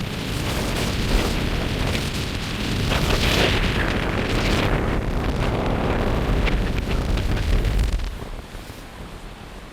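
Strong wind gusts buffeting the microphone, a loud low rumble with hissing noise over it, that drops off sharply about eight seconds in.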